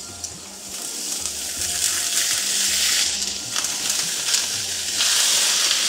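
Sliced onions sizzling on a hot sizzler platter, growing louder over the first two seconds. The sizzle steps up again about five seconds in as tandoori chicken legs are laid onto the platter.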